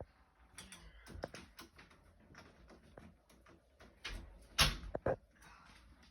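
Small metal clicks and taps of door lock hardware being handled and worked on, with a sharper knock about four and a half seconds in and another just after.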